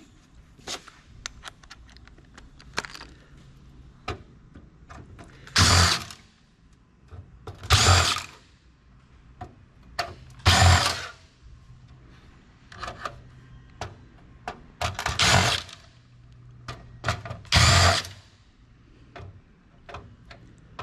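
Cordless drill-driver with an extension bit backing out computer motherboard screws in five short bursts, with light clicks of screws and parts being handled between them.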